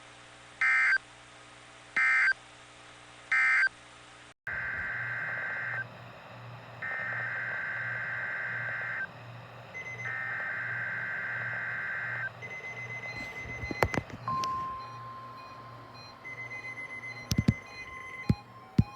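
NOAA Weather Radio SAME data bursts, the warbling two-tone digital code of the alert system. First three short end-of-message bursts close out one station's weekly test; after a cut, three longer header bursts about a second apart open another station's Required Weekly Test. About 14 s in, a steady alert tone begins, with a few sharp clicks.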